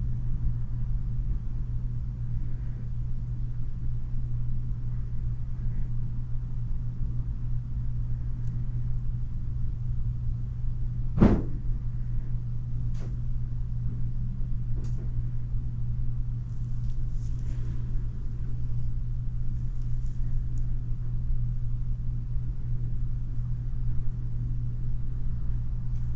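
Steady low mechanical hum, like a small motor or fan running, with a sharp click about eleven seconds in and a couple of fainter ticks after it.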